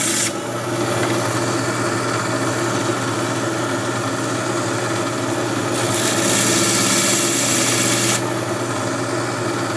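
Small band saw running steadily with a hum, its blade cutting through the stony skeleton of a Duncan coral with a gritty rasp. The rasp stops just after the start and comes back louder for about two seconds from around six seconds in.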